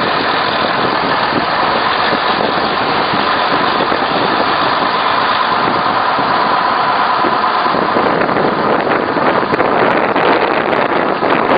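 Train running as it rolls slowly away from a station, heard from an open carriage window: a steady mechanical hum with a constant whine. From about eight seconds in, rough crackling wind buffeting on the microphone joins it as the train picks up speed.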